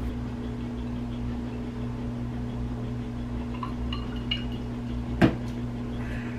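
A drinking glass set down on a cutting mat with one sharp knock about five seconds in, after a few faint glassy clinks a second earlier, over a steady low hum.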